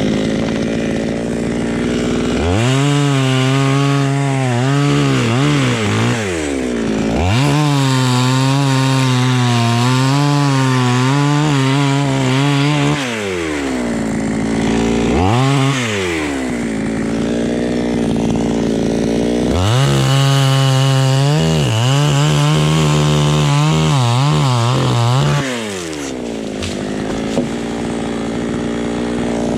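Two-stroke chainsaw cutting through a coconut palm trunk: it revs up to full throttle in three long spells, its pitch wavering under load, with a short blip of throttle between them, and drops back to idle in between and near the end.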